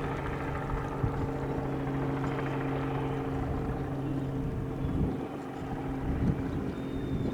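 Robinson R44 Raven helicopter in flight: the steady drone of its six-cylinder Lycoming piston engine and rotors over a low rumble, easing slightly about five seconds in.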